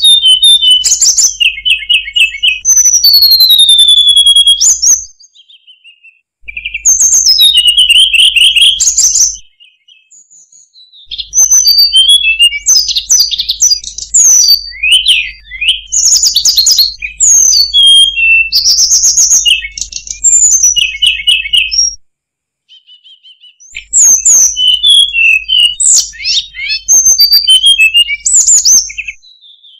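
Hill blue flycatcher singing: phrases of rapid, varied high whistles and trills, broken by short pauses about five, ten and twenty-two seconds in.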